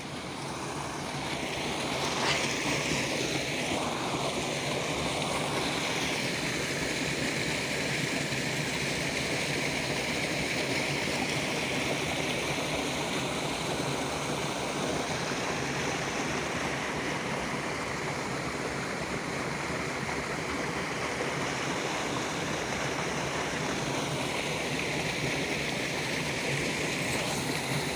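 Rain-swollen water rushing steadily out of a small dam into a canal: a continuous roar of flowing water that builds over the first couple of seconds and then holds.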